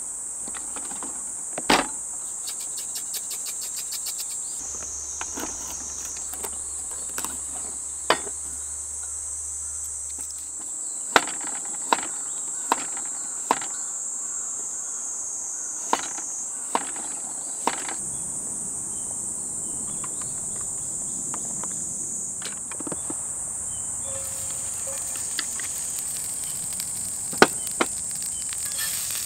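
Steady, high-pitched chorus of calling insects, with about ten sharp knocks scattered through it, four of them in an even run just under a second apart.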